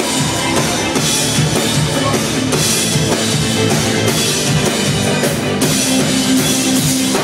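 Live band playing an instrumental passage with the drum kit prominent, bass drum and cymbals keeping a steady beat, heard loud from the audience in a concert hall.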